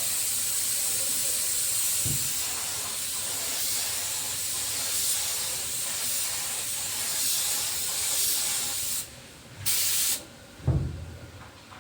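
Compressed-air spray gun hissing steadily as paint is sprayed, cutting off about nine seconds in. A short half-second burst of spray follows, then a dull thump near the end.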